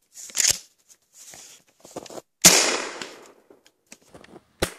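Maverick 88 pump-action shotgun firing a flare round: a single shot about two and a half seconds in, with a short fading tail. A shorter sharp crack follows near the end.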